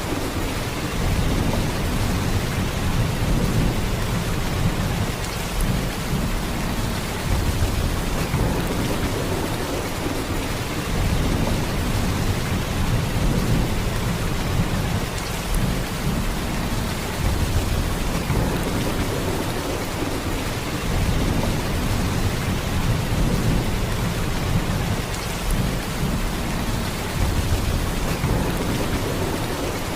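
Heavy rain pouring steadily, a dense even hiss of drops with a deep low rumble underneath that swells and eases every few seconds.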